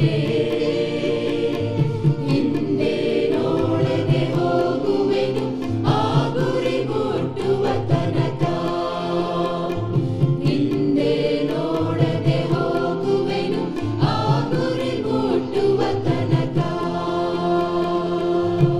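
A choir singing a Christian song over instrumental accompaniment with a steady beat.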